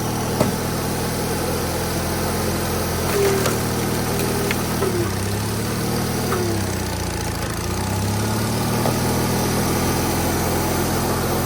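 A small engine running steadily, its pitch sagging and recovering slightly a few times.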